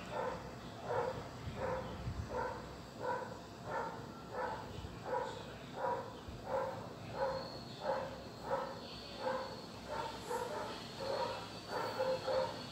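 A dog barking over and over at a steady pace, about three barks every two seconds.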